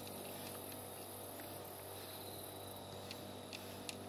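A cat eating from a plate, a few short crunches of dry kibble in the last second or so, over the steady high chirring of insects.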